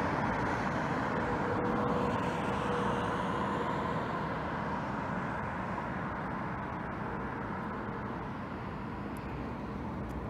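Road traffic running steadily, with a faint steady hum in it, slowly fading.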